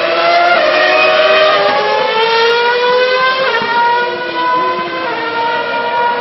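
Formula One cars' V8 engines at high revs, several overlapping, each a high whine climbing in pitch. The pitch steps abruptly about half a second in and again about three and a half seconds in, as gears change.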